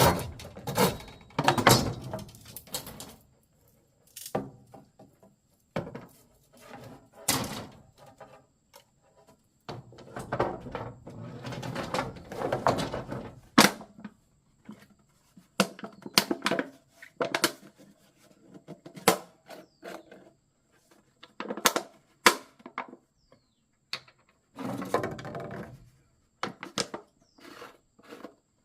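Irregular sharp knocks, taps and clatter of things being handled, with a few short stretches of rustling or scraping.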